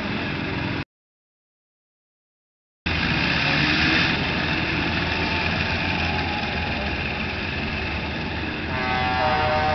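Old combine harvesters' engines running as they race. The sound cuts out completely for about two seconds about a second in. Near the end, the train horn fitted to one of the combines starts to sound as a chord of several steady tones.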